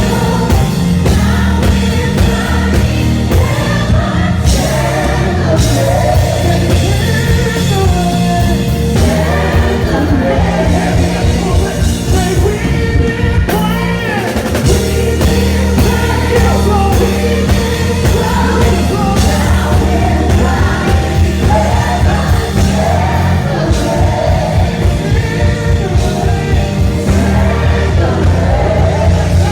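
Live gospel worship music: voices singing over a band with sustained bass notes and drums.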